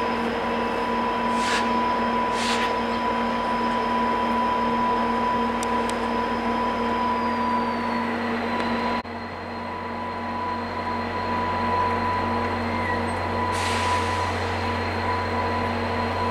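Two EMD F40PH-2 diesel locomotives with 16-cylinder two-stroke engines running as they slowly pull a long passenger train out, a steady engine drone with a whine over it. About halfway the sound dips suddenly and a deeper hum comes in. A few short high hisses are heard.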